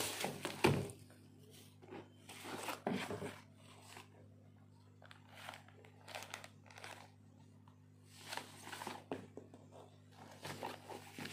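Plastic bubble wrap crinkling and rustling in short bursts as it is pulled off a power drill, with a sharp handling knock about a second in.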